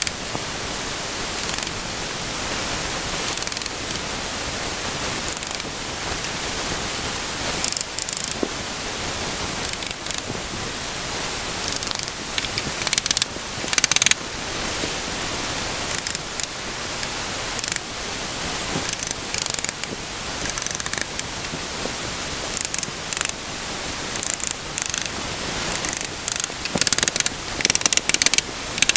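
Claw hammer driving nails into a plywood speaker box, the strikes coming in quick runs of sharp taps with pauses between them, over a steady background hiss.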